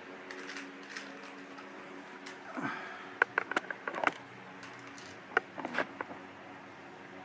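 Custom Glock 17 pistol firing test shots at a target: a quick run of about five sharp pops about three seconds in, then two more shortly after, over a steady low hum.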